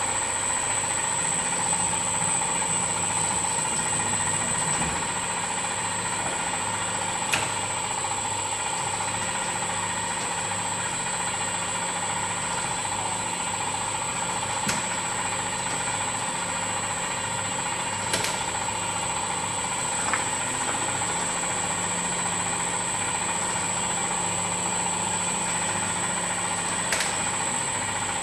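Boutelje Honey Auger running steadily as it grinds crystallised honey, a continuous machine hum with a high whine. A few sharp clicks come at irregular moments.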